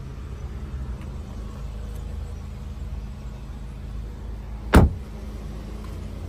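A car door shutting once with a single sharp thump, heard over a steady low hum.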